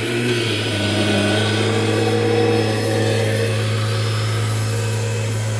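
A 1998 Kirby Generation 5 upright vacuum running steadily: a constant motor hum whose pitch shifts slightly about a second in.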